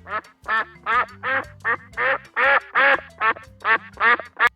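A duck quacking about a dozen times in a quick, even series, roughly two and a half quacks a second, over light background music.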